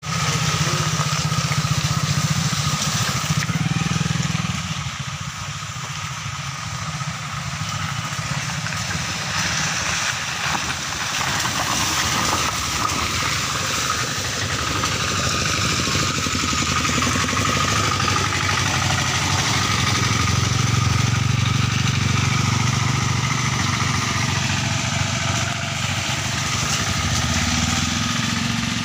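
Motorcycle engines running steadily as motorbikes ride a rough, potholed gravel road; the engine hum swells and eases a little.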